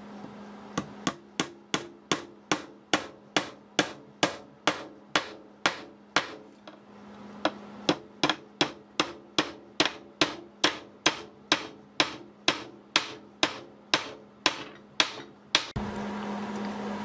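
Small brass-headed hammer tapping short cut-off nails into a wooden clock door frame to hold the door catch: light, quick taps, about two or three a second, with a short pause partway through.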